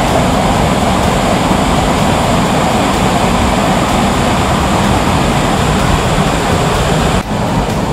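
Waterfall cascading over rocks: a steady, loud rush of water, dropping in level shortly before the end.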